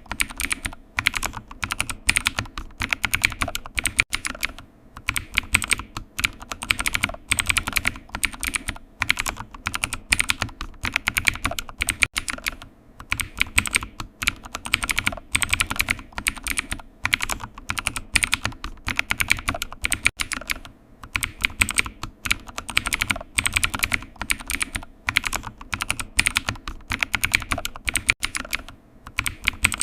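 Computer keyboard typing: steady runs of quick key clicks with short pauses between bursts.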